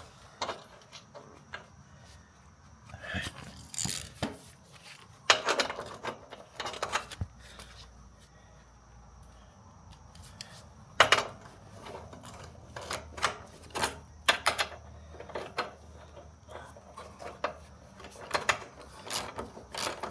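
Irregular metal clinks, knocks and scraping as steel mounting parts and a bolt are handled and fitted. The loudest knocks come about a quarter of the way in and again near the middle.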